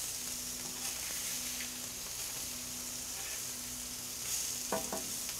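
King salmon fillets sizzling on a very hot, dry flat-top griddle: a steady frying hiss as the glazed fish blackens.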